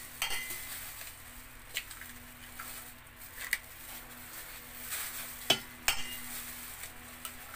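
Eggs tapped against the rim of a stainless steel bowl and cracked open: a few sharp clicks, the loudest pair about five and a half seconds in.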